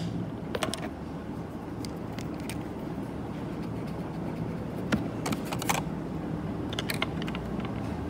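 Eraser being picked up and rubbed over pencil lines on paper: a few scattered short clicks and scrubbing strokes, over a steady low background hum.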